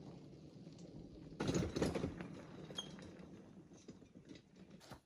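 Four-wheeled utility cart loaded with firewood logs rolling over gravel and a dirt path, its wheels crunching and the load rattling, with a louder rattle about one and a half seconds in.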